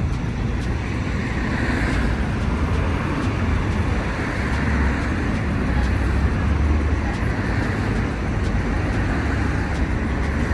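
Road traffic: motor vehicles passing, a steady low engine rumble with tyre noise.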